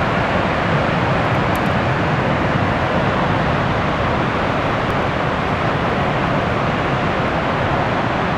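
Niagara's Horseshoe Falls: a huge volume of water pouring over the brink and crashing into the gorge, a loud, steady rushing with a deep rumble under it.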